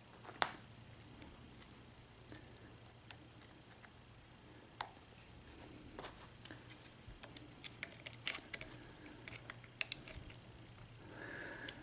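Faint, scattered small metallic clicks and ticks of a lock pick and tension wrench being handled and worked in an American Padlock A1100 padlock, coming more often in the second half.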